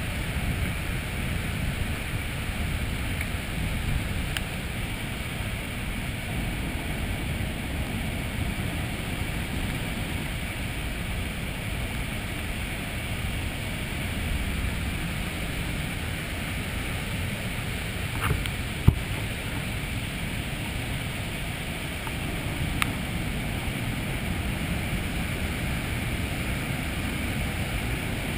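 Granite Falls' heavy white water pouring over granite into the sea, a steady rushing roar. A few sharp knocks come about two-thirds of the way through.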